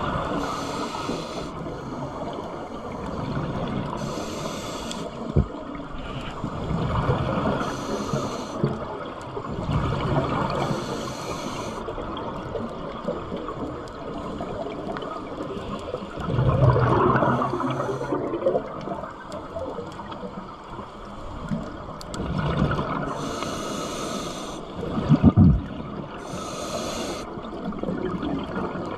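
Scuba diver breathing through a regulator underwater. The hiss of each inhalation alternates with the bubbling rumble of exhaled air, a breath every few seconds. The loudest bursts of bubbles come a little past the middle and near the end.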